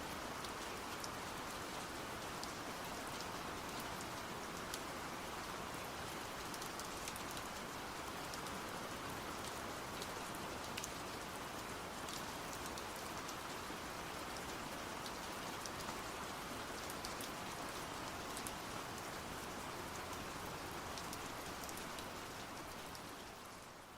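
Steady rain falling, with fine sharp ticks of individual drops over an even hiss, fading out over the last couple of seconds.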